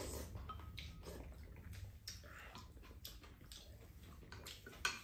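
Quiet eating sounds: spoons scraping and tapping in ceramic bowls and wet chewing, as a series of small scattered clicks over a low room hum, with one sharper clink near the end.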